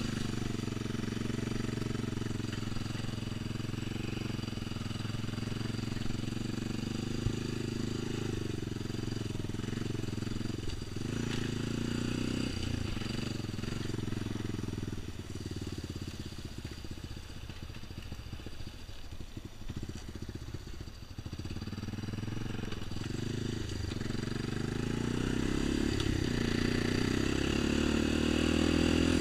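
Honda utility ATV's single-cylinder four-stroke engine running under way. It eases off about halfway through, then revs back up with a rising pitch near the end.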